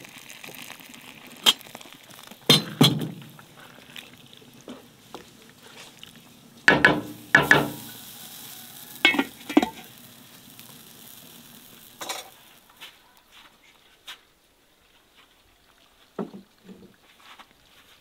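Stew sizzling in a cast-iron pan as hot water is poured in, with a wooden spatula stirring and knocking against the pan in a series of sharp clanks. It turns quieter in the second half, with only a few faint clicks.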